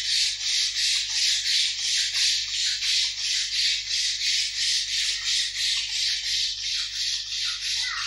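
Rhythmic scrubbing in a metal bowl, an even rasping stroke about three times a second.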